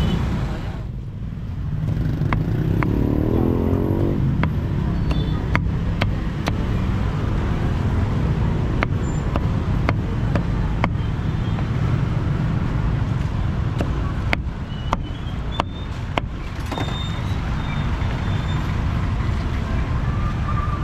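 Steady low rumble of street traffic, with a string of irregular sharp knocks through most of it.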